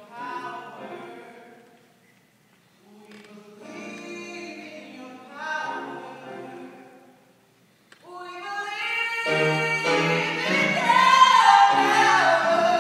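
Mixed cast of voices singing a musical-theatre number with piano accompaniment. Short sung phrases with brief pauses between them, then the full ensemble comes in loudly about eight seconds in.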